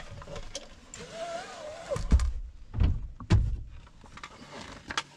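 Wooden sailboat hatch boards being handled and stowed: a few knocks and thuds of wood on wood around the middle, and a lighter knock near the end.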